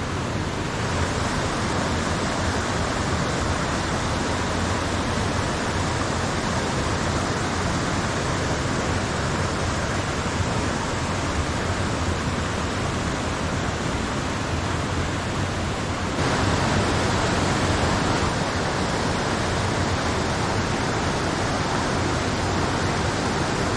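Mountain creek rushing over boulders and small cascades, a steady rush of water that grows louder about two-thirds of the way through.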